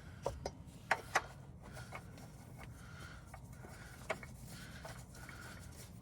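A handful of light clicks and taps from parts or tools being handled, the two sharpest about a second in and another near the four-second mark, over a faint hum.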